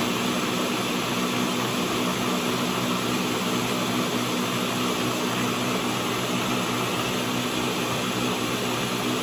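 Ninja countertop blender running steadily on high, puréeing a jug of cooked vegetable soup.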